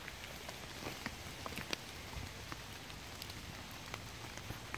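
Rain in woodland: drops tapping irregularly on wet leaves over a soft, steady hiss.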